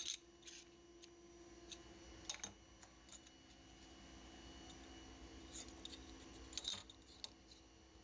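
Thin machined metal knife-handle plates clinking and scraping lightly against each other as they are shuffled in the hand and set down: a scattering of faint, sharp clicks, a few clustered together near the end.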